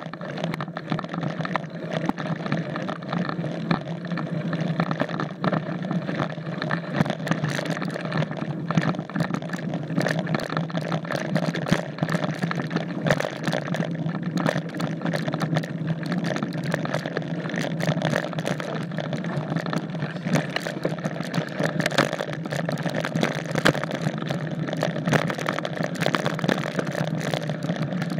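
Mountain bike riding over a rocky dirt trail: a steady rush of tyre and wind noise with frequent clicks and knocks from the bike rattling over stones and bumps.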